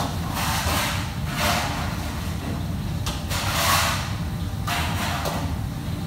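Commercial kitchen working noise: a steady low hum with several short bursts of hiss-like noise, the loudest just before four seconds in.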